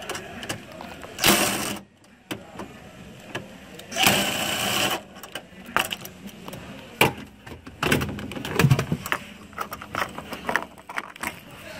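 Cordless drill with a socket extension spinning a bolt out of the floor in two short runs, the first about half a second and the second about a second long. This is followed by a string of light clicks and rattles as the loosened bolt is handled.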